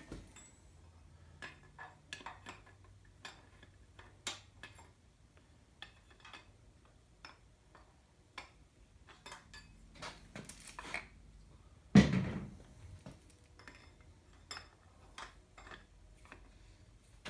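Scattered light metal clinks and ticks of tools and a bearing installer being handled against an engine block while a cam bearing is fitted, with one louder metal knock about twelve seconds in.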